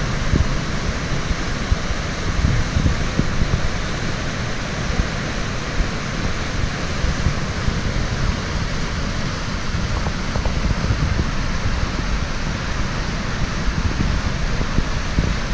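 Waterfall and river water rushing: a steady, even hiss with an unsteady low rumble underneath.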